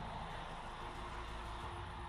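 Steady low drone of a vehicle engine running, with no change in pitch.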